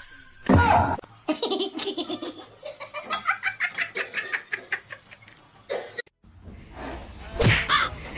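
A person laughing hard in quick repeated bursts for several seconds, after a short loud falling cry just after the start. The laughing stops at a cut about six seconds in, and another loud vocal sound comes near the end.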